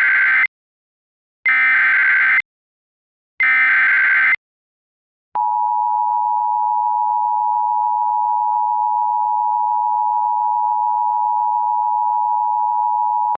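Emergency Alert System SAME header: three one-second bursts of warbling digital data tones, about a second apart, the first already sounding at the start. About five seconds in comes a single steady high NOAA Weather Radio attention tone, about 1050 Hz, which holds for about eight seconds and cuts off abruptly.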